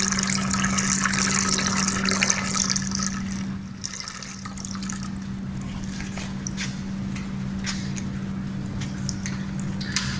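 Water from the piezometer connection tubes splashing into a plastic jug as the lines are bled of air bubbles; the stream dies away about four seconds in, leaving a faint trickle and small clicks. A steady low hum runs underneath.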